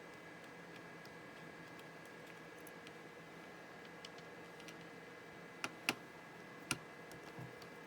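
Light ticks and clicks of hands working on an opened-up laptop's parts, with three sharper clicks a little past the middle, over a faint steady whine.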